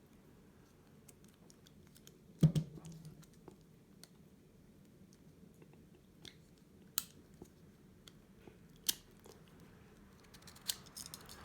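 Metal handcuffs being worked with a thin handcuff shim: one sharp click about two and a half seconds in, then a few fainter clicks spaced seconds apart, with light scraping between. The shim fits very tightly in the UL1 handcuffs.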